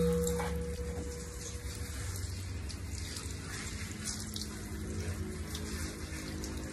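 Water spraying from a handheld shower head onto a husky puppy's fur and splashing onto the tiled floor, steady throughout. A low steady tone dies away in the first two seconds.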